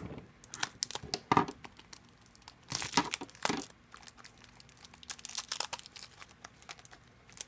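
Clear plastic wrapper of a Shopkins mystery pack being cut with scissors and then crinkled and torn open by hand: irregular crackles and rustles, loudest around three seconds in.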